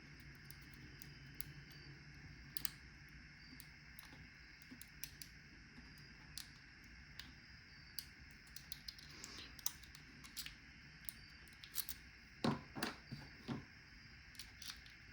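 Lock picking in a padlock: faint scattered metallic clicks and ticks of a pick and tension wrench working the pins, with a quicker cluster of louder clicks about twelve to fourteen seconds in. A faint steady hum sits underneath.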